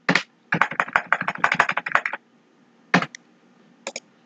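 Typing on a computer keyboard: a quick run of keystrokes for about a second and a half, then a couple of single clicks near the end.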